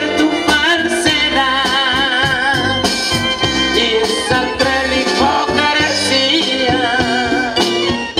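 A live Latin band playing: electric guitar and keyboard over bass and a steady beat, with a wavering lead melody on top.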